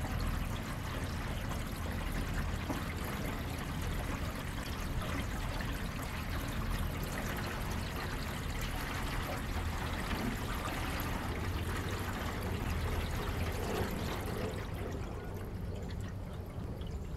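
Water splashing and lapping against the hull of a 14-foot jon boat: a steady rushing with a constant low rumble underneath. The hiss thins out near the end.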